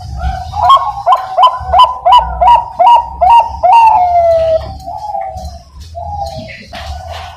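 Zebra dove (Bangkok-type perkutut) singing its cooing song. A rapid run of about eight short, clipped notes ends in a long falling note, followed by softer coos.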